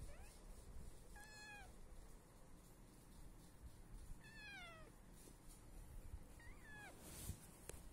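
Kitten mewing faintly: three short, high-pitched mews, each falling in pitch, about a second in, at about four seconds, and again near six and a half seconds.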